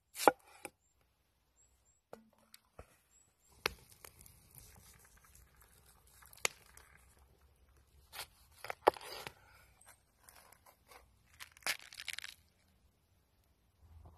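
A cleaver cutting through raw potato and pomegranate: crunching, tearing cuts, with about six sharp knocks as the blade hits the wooden cutting board.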